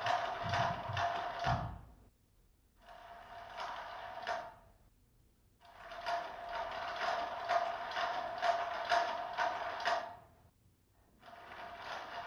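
Motorized electronic cat toy whirring in spurts: its small geared motor runs with a steady hum and fine clicking, stops for about a second, and starts again, four times over.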